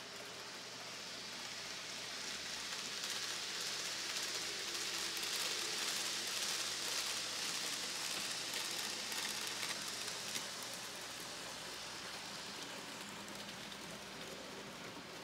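N gauge model trains running on the layout, a steady high hiss of small wheels on the rails and their motors, growing louder through the middle and easing off toward the end.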